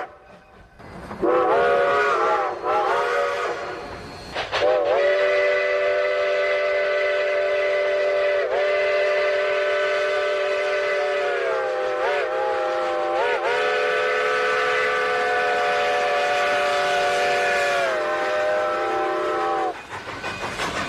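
Steam train chime whistle sounding several notes at once as a chord: a few short blasts that bend in pitch, then one long blast of about fifteen seconds that sags briefly in pitch a few times and falls off at the end.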